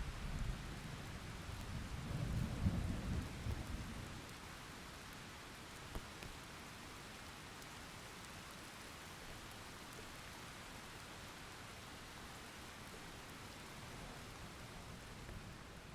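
Steady rain with a low roll of thunder in the first few seconds, strongest about two and a half seconds in, then fading back to the rain. There is one sharp click about six seconds in.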